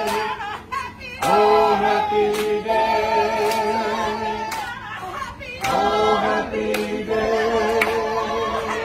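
A group of people singing a slow song together without instruments, holding long notes in phrases with short pauses between them.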